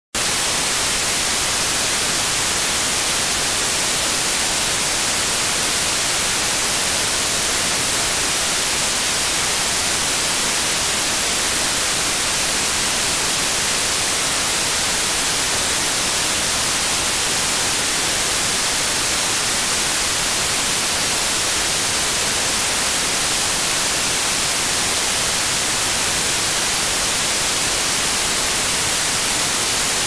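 Steady white noise: an even, unchanging hiss with no breaks, bright in the treble.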